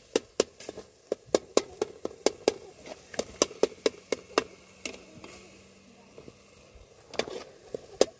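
Repeated sharp knocks, irregular at about two to three a second, that stop for about two and a half seconds after the middle and then start again near the end.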